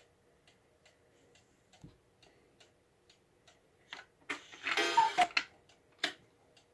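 Black Forest cuckoo clock's pendulum movement ticking about twice a second. From about four seconds in, a hand moves the clock's hands, setting off a burst of loud clicks and a short rattling whirr from the works, with one more sharp click near the end.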